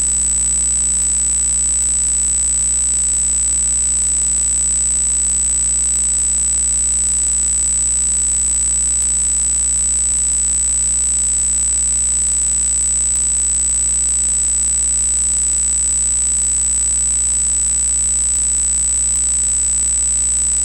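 Steady electrical hiss and hum with a constant high-pitched whine and a low drone, unchanging throughout: the self-noise of the Harinezumi 2++ toy digital camera's built-in audio recording.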